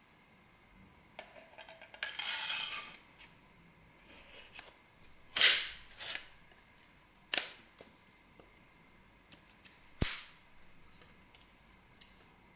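Metal parts of a Graflex-style lightsaber hilt being handled and fitted together. A scraping rub comes about two seconds in, then a few sharp metal clicks and knocks as sections seat against each other, the loudest about halfway and near the end.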